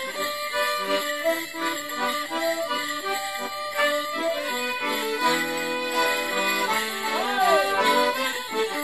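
Accordion-led folk band playing a traditional English morris dance tune, with a lively, steady beat.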